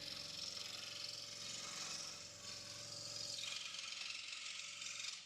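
Proxxon DS 460 scroll saw running, its induction motor humming steadily under the fast chatter of the reciprocating blade. The sound cuts off suddenly near the end.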